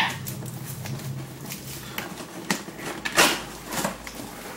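Cardboard boxes being opened by hand: scattered short rustles and scrapes of cardboard and packaging, the loudest about three seconds in.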